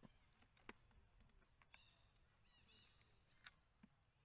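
Near silence, with faint scattered clicks and a few faint, short, high-pitched animal chirps just before halfway.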